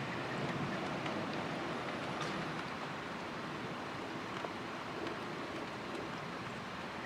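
Steady hiss of thunderstorm rain and wind, with a few faint ticks.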